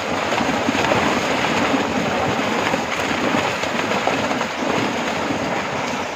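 Dense, continuous splashing and churning water as a crowd of fish thrash at the surface inside a net being hauled in.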